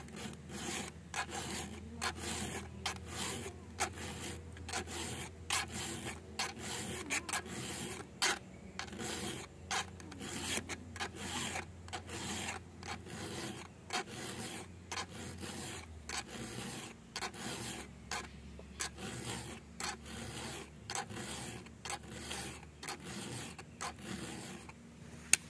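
Round chainsaw file rasping across the cutter teeth of a chainsaw chain in short repeated strokes, sharpening the chain by hand.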